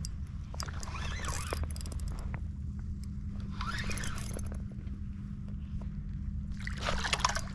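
Shimano Nasci 4000XG spinning reel being cranked, reeling in a hooked fish, under a steady low hum. Three short rushing bursts come about a second, four seconds and seven seconds in.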